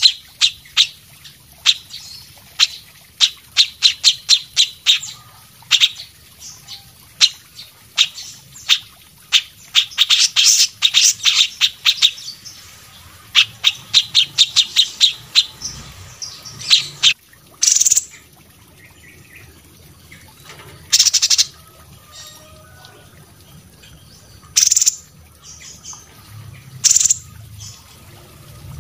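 Indonesian cage songbirds from a mix of cililin, cucak cungkok, kapas tembak and cucak jenggot, calling. Quick runs of sharp, high chirps fill the first half, then a few louder single calls come a few seconds apart.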